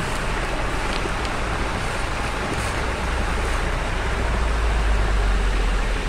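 Water rushing steadily down a narrow concrete channel, its surface covered in foam. A low rumble underneath grows louder toward the end.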